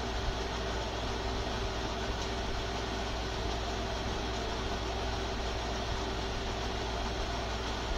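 Steady hum and hiss of a fan or air-conditioning kind of machine, with a faint constant tone, running evenly throughout.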